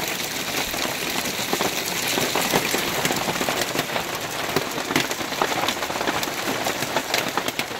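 Hail and rain pelting the roof and walls of a truck camper: a dense, steady patter thick with sharp ticks of single hailstones striking.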